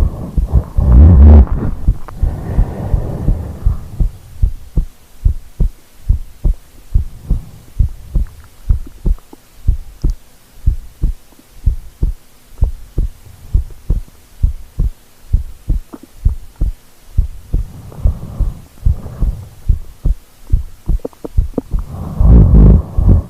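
A sleeping person's heartbeat, picked up through the body by a microphone she lay on, thumps steadily a little over once a second. Louder snoring breaths swell up about the first few seconds and again near the end.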